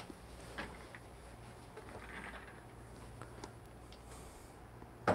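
Quiet room with a low steady hum and a few faint knocks from the recording phone being handled, then one sharp knock just before the end.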